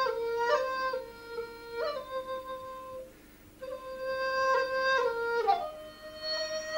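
Background music: a flute playing a slow melody of held notes that step up and down, with a short pause about halfway through.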